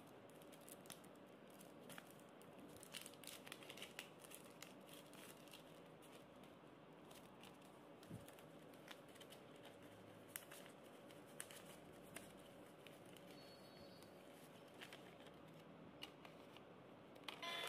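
Faint rustling and light clicks of paper play-money notes being handled and shuffled. Just before the end, the toy ATM piggy bank starts an electronic jingle as a note goes into its slot.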